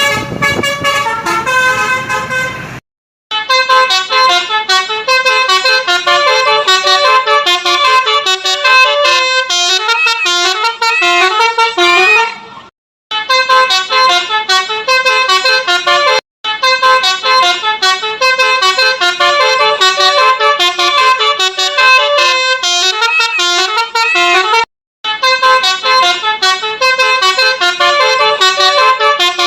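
Telolet basuri bus horn playing quick melodic tunes of short stepping notes, with a few notes sliding in pitch near the middle. The tunes come in several takes, split by brief silent breaks.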